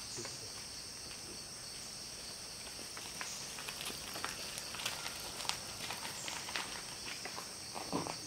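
Steady high-pitched drone of forest insects. Scattered light cracks and rustles from undergrowth start about three seconds in, and a brief lower sound comes near the end.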